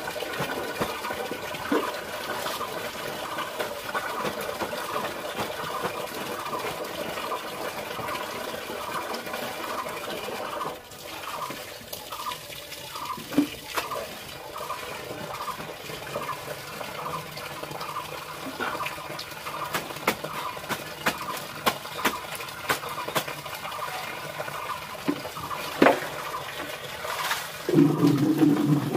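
Water running steadily from a standpipe onto a concrete floor, with the splashing and rubbing of clothes being washed by hand in a steady rhythm. Near the end there is a louder clatter.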